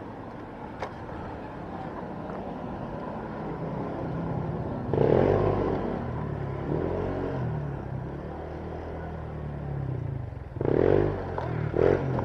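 Motorcycle engine running, its pitch stepping up and down, with louder passages about five seconds in and again near the end.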